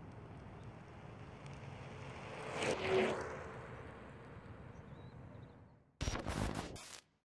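Hover-1 Dynamo electric scooter rolling past on asphalt on its air-filled tyres: the tyre and motor noise rises to a peak about three seconds in, then fades. About six seconds in, a short sound effect of about a second plays and cuts off suddenly.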